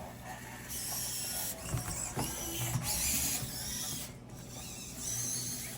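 Robosen Elite Optimus Prime robot's servo motors whirring in a series of high-pitched runs with small clicks and knocks between them as the robot transforms on a voice command.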